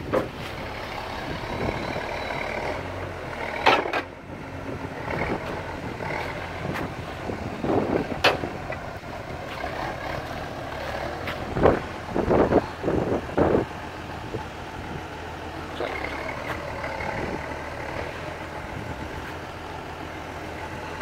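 Timberjack forestry machine's diesel engine idling steadily, with a few brief louder noises over it.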